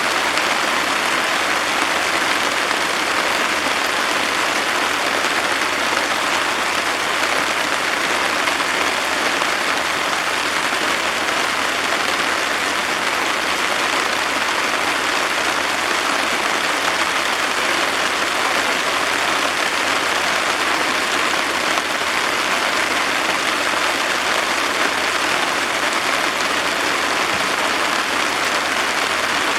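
Heavy downpour: a steady, dense hiss of pouring rain.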